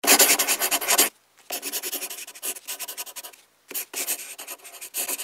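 Pen scratching on paper as it writes, in three quick runs of short strokes separated by brief pauses.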